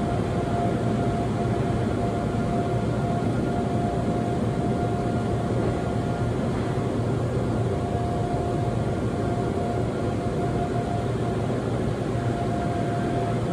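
Seoul Subway Line 2 train running on above-ground track, heard from inside the car: a steady rumble of the wheels on the rails with a steady whine over it.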